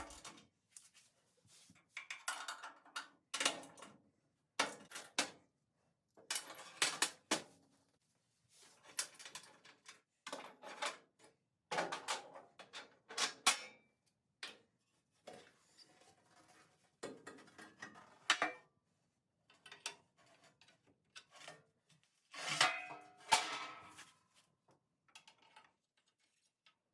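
Steel bolts, washers and hand tools on body mount bushings clinking and clanking at irregular intervals as the mounts are taken apart and refitted, some strikes ringing briefly.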